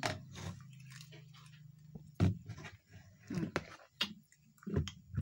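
Close-up chewing of a mouthful of rice, with a few sharp clicks and scrapes of a metal spoon on a plastic plate; a low steady hum runs through the first couple of seconds.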